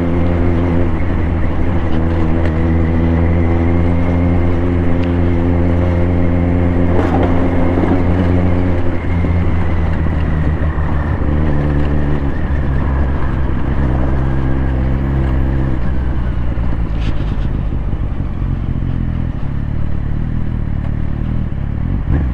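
Large-displacement big-bike motorcycle engine running at low speed in slow traffic, heard from the rider's seat. The revs rise and fall slightly a few times.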